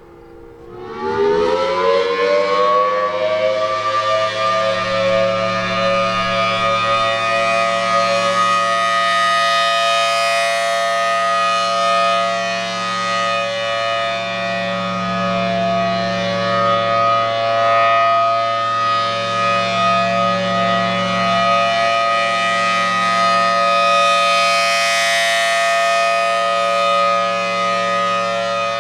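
Federal Signal Thunderbolt 1000T outdoor warning siren winding up from a low pitch over the first two seconds, then holding an extremely loud steady tone, the full-alert signal. It swells brighter about ten seconds in and again near the end as the rotating horn turns toward the listener.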